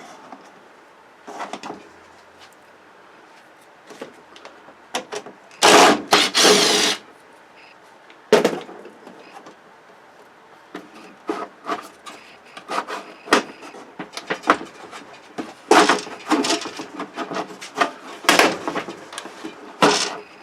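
Plastic and metal parts of a flat-screen TV being handled during teardown: scattered clicks and knocks, a louder scraping stretch lasting about a second around six seconds in, and a busy run of clicks and knocks near the end.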